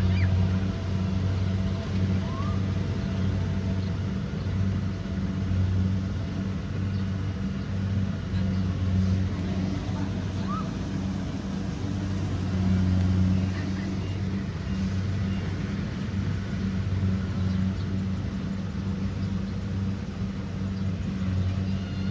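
Kubota DC70 Pro combine harvester's diesel engine and threshing machinery running steadily under load, with a low hum that swells and eases slightly.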